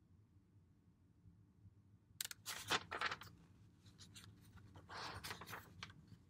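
Pages of a paperback book being flipped and handled, with paper rustling in two short spells, about two seconds in and again about five seconds in.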